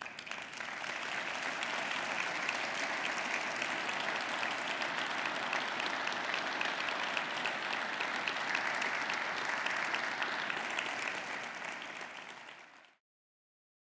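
A large audience applauding steadily, building over the first second, easing slightly, then cut off abruptly near the end.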